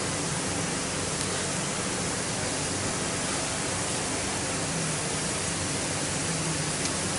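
Steady sizzling hiss of chopped onions, garlic and parsley frying in a stainless steel pan as pieces of raw minced meat are dropped in.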